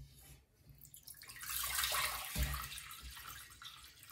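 Water poured from a stainless saucepan into a large ceramic-lined pot, a steady splashing pour that starts about a second in. A dull knock partway through.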